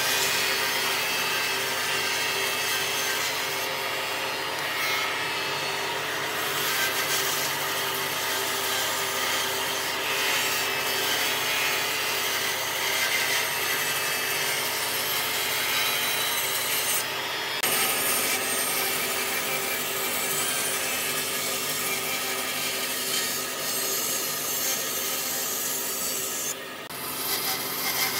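Band saw running and cutting through thick wooden blocks: a steady rasp of the blade in the wood over the hum of the machine. The sound briefly changes about seventeen seconds in and dips for a moment near the end.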